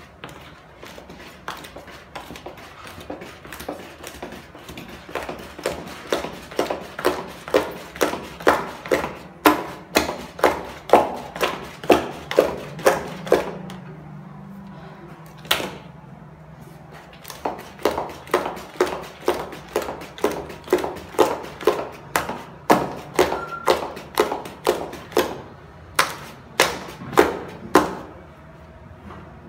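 A long wooden stick knocking against a plastic bucket as thick batter is beaten by hand, about two knocks a second, with a short pause about halfway through.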